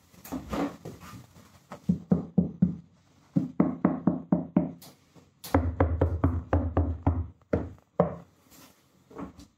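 Knuckles knocking repeatedly on a steel van rear wheel well lined with Kilmat butyl sound-deadening mat, in quick runs of short, dull knocks. A low drone joins in for about two seconds midway. This is the deadened wheel well, whose main effect is reduced reverberation.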